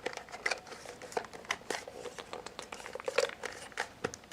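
Plastic shell of a Tyco VideoCam toy camcorder creaking and clicking as its top piece is pried and flexed by hand. It comes as a run of irregular sharp clicks and crackles, the housing straining against a catch that still holds it.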